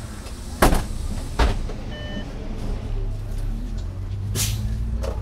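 Inside an Iveco Urbanway 12 natural-gas city bus: two sharp knocks under a second apart, a short beep, then a brief hiss of air, while the engine's low rumble grows louder in the second half.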